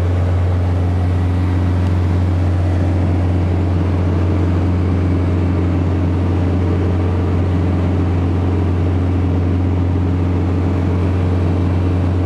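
Socata TB-9 Tampico's four-cylinder Lycoming engine and propeller droning steadily, heard from inside the cabin in flight.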